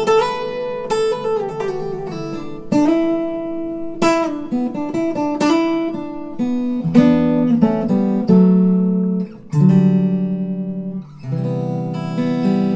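Background music on acoustic guitar: plucked notes and chords ringing out one after another.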